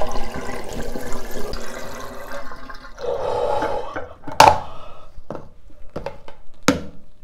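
Bathroom tap running into the sink while a face is washed with splashed handfuls of water, with a few sharp splashes, the loudest about four and a half seconds in.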